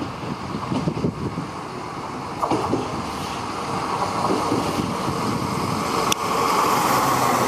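SNCF X 73500-series diesel railcar running along the platform track, a steady engine and rolling noise that gets louder about six seconds in, just after a single click.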